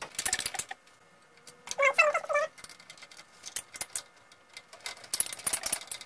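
Screwdriver turning small machine screws into the motherboard standoffs inside a metal PC case: clusters of quick metallic clicks and ticks as each screw is backed off and then driven forwards. A brief squeak about two seconds in.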